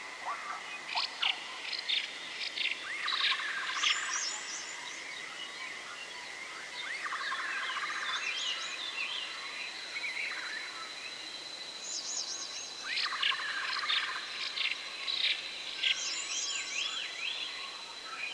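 Forest ambience of several birds chirping and trilling, with one trilled phrase recurring about every five seconds over a thin, steady, high insect-like whine.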